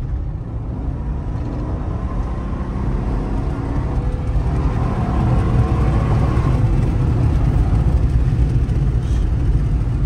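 2017 Chevy Tahoe's V8 engine and road rumble heard from inside the cabin as the truck accelerates: the engine note rises in pitch for several seconds, then settles into a steady cruise at highway speed.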